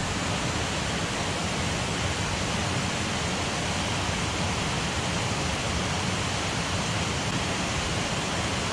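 Steady, even rush of a waterfall on a rain-swollen beck, running high with water.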